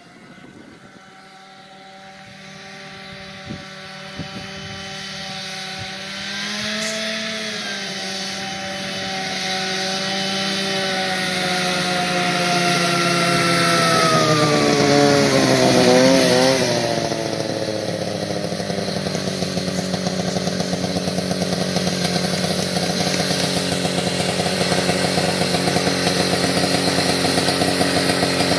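Vintage Ski Zoom snowmobile's uncovered two-stroke engine, very loud, growing louder as the sled approaches. Its pitch slides down as it comes past, then it settles into a steady lower note close by for the last ten seconds or so.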